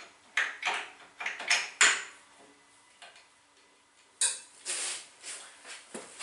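Small metal parts clicking and clinking as a small oil bath is fitted back onto a friction test stand: a quick run of light knocks, a pause of about two seconds, then another cluster of clinks about four seconds in.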